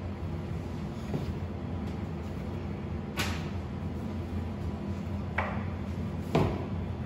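A steady low hum with three sharp knocks: one about three seconds in, another about two seconds later, and a louder one a second after that.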